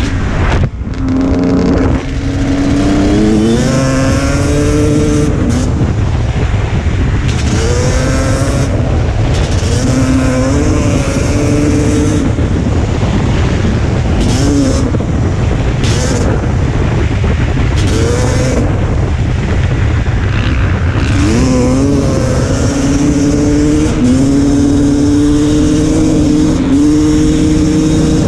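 Dirt bike engine under way, revving up and shifting through the gears again and again: its pitch climbs, drops back at each shift, then climbs again. A steady wind rumble on the microphone runs under it.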